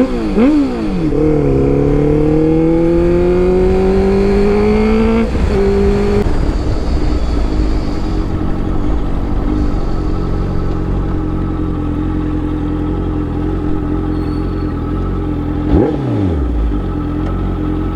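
Honda CBR650F inline-four engine through an Arrow full-system exhaust: a couple of quick throttle blips, then a steady rise in pitch for about four seconds as it accelerates, a drop in pitch about five seconds in, and then a long steady engine note. One sharp rev blip comes near the end.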